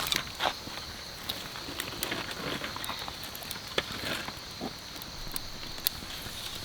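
Steady high-pitched insect chirring, with scattered small clicks and short knocks over it.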